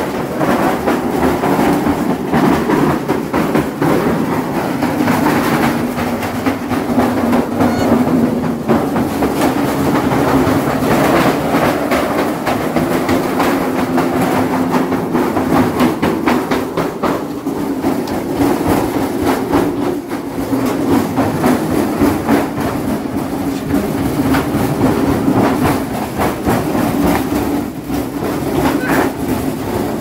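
Scrap front-loading washing machine, hot-wired to run, spinning an unbalanced load of clothes: a steady motor and drum hum with continuous rattling and knocking as the machine shakes and shifts across the floor.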